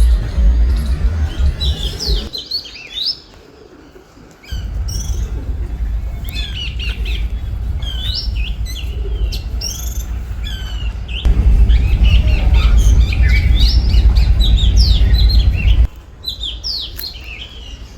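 Several small birds chirping and calling in quick, overlapping notes. Underneath them runs a loud low rumble that cuts out abruptly twice, about two seconds in and again near the end.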